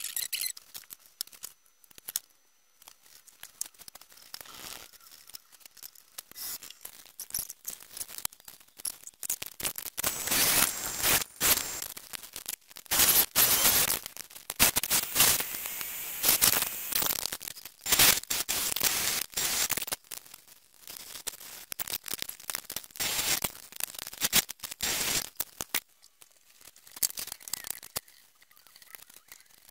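Sieg X1 mini mill drilling holes in a solid steel part with a twist drill. The drilling runs in several stretches through the middle, with short pauses between them, and there are clicks and handling noises before and after.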